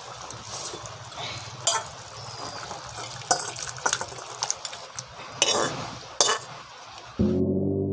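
Metal spoon scraping and clinking against a steel kadai and a steel bowl as thick curry is spooned out, with four sharp clinks. Background music starts suddenly near the end.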